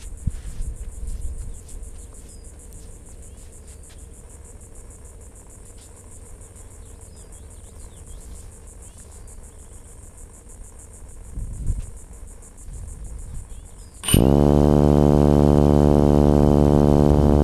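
Low wind rumble on the microphone with a few faint knocks, then, near the end, the aircraft's propeller motor starts abruptly and runs loud and steady at one even pitch.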